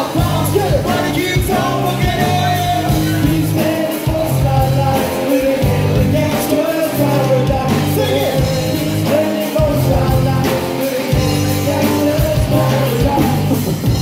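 Live rap-rock band playing loudly: bass and drums under guitars and keyboard, with a sung vocal line over the top.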